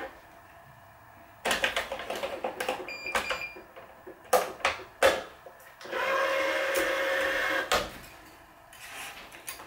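17-gauge synthetic cross string being pulled by hand through the main strings of a racquetball racquet: a run of short, quick rasps, then one longer, steadier pull of under two seconds.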